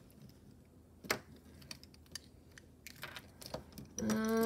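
Small, scattered clicks and taps of acrylic earring pieces and their metal findings being handled in the fingers and touched by long fingernails. Near the end a woman holds a level hum.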